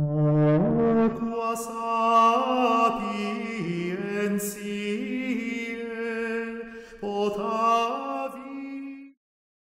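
A solo sung vocal sample, chant-like, holding notes and sliding between pitches. It runs through a multiband waveshaping distortion plugin, lightly saturated at first, then clean once the dry/wet is turned down to zero. It cuts off about nine seconds in.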